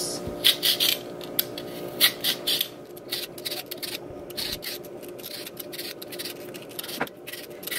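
Vegetable peeler scraping strips of skin off a cucumber: a run of short rasping strokes, closest together in the first few seconds, then fainter, over a steady low hum.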